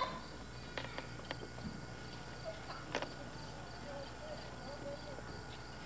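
Insects chirping in a steady, even rhythm, with a few sharp clicks and faint distant voices.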